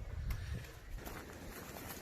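Footsteps with a few faint scattered clicks, and wind rumbling on the microphone for about the first half second.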